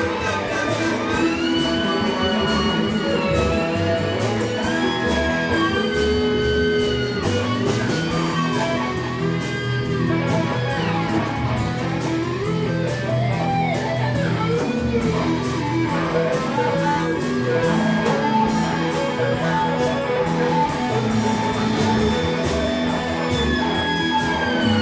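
A theremin plays a melody of smooth sliding pitches, falling away in a long glide near the end, over a band jam with guitar.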